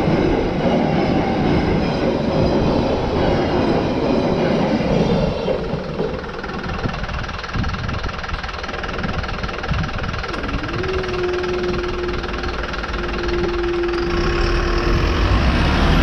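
The tail end of a long freight train of car-carrier wagons rolling past, wheels rumbling and clattering over the track, dying away about six seconds in. Later a steady tone sounds for a few seconds, and near the end road vehicles start moving off close by.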